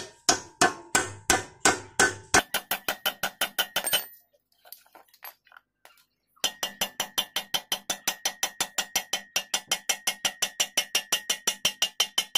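Hammer blows tapping a new needle roller bearing into a Honda XR200 swing arm pivot tube, metal on metal with a ringing note. The blows come about three a second and then faster, stop for about two seconds, then go on steadily at about five a second.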